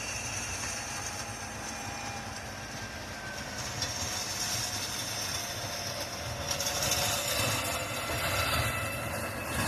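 Farm tractor engine running steadily as it scrapes snow, a low rumble that grows slightly louder in the second half.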